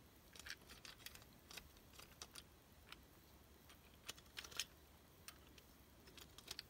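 Faint, scattered small clicks and taps from a screwdriver working a tiny screw on the underside of a clockwork O gauge model locomotive as it is turned in the hand. The clicks come in small clusters, busiest about half a second in and about four seconds in.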